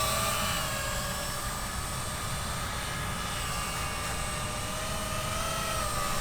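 Multirotor drone's propellers and motors in flight: a steady whine that wavers slightly in pitch.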